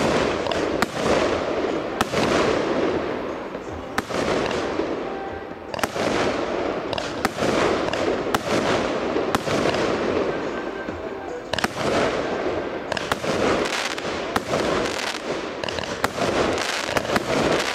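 Aerial firework shells bursting in a continuous barrage, with sharp bangs about once a second or faster over a steady crackle.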